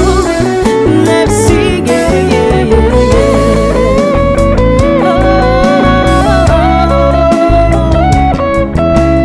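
Live band playing an instrumental passage: a guitar plays a lead melody with bending, wavering notes over bass and percussion.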